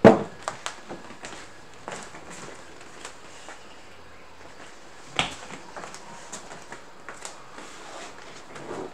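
A plastic blaster set down on a table with a knock, then faint scattered clicks, knocks and footsteps of someone moving about the room, with one sharper knock about five seconds in.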